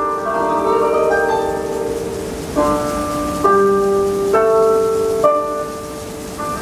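Station departure melody playing over the platform speakers: a melody of separate bright notes, one after another.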